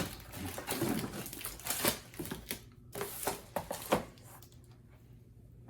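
Packaging crinkling and rustling, with light clicks and knocks as the hive's plastic tray is unwrapped and handled; it stops about four seconds in.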